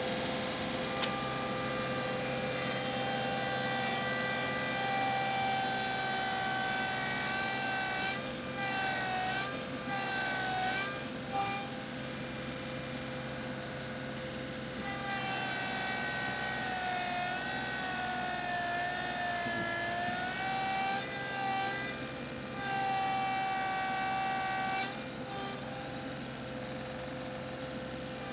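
John Deere 2038R compact tractor's three-cylinder diesel running at full throttle with its hydrostatic drive whining. It is pulling a two-bottom plow through sod, and the pitch sags twice as the load pulls the engine down.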